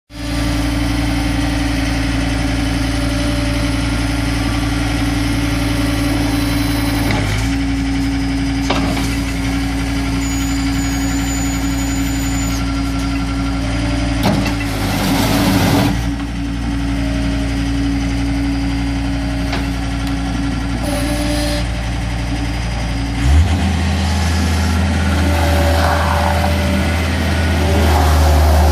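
2007 John Deere 325 skid steer's diesel engine running steadily. Its note changes abruptly about three-quarters of the way through, and a brief noisy rush is heard around the middle.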